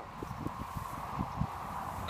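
Rustling and scattered light knocks as a freshly tied hay bale is pulled out of a wooden hand baler.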